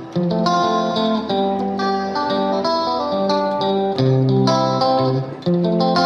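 Background music led by a plucked guitar playing a steady run of notes.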